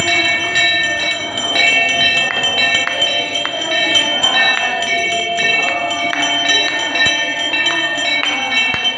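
Hanging brass temple bell rung by hand over and over, about two strikes a second, each ring running into the next.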